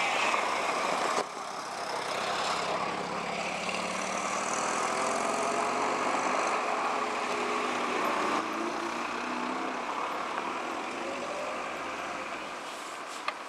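ST43 (Electroputere 060DA) diesel locomotive, with its Sulzer twelve-cylinder engine, running under load as it hauls a mixed freight train, over the rumble of the wagons. The sound fades gradually in the second half.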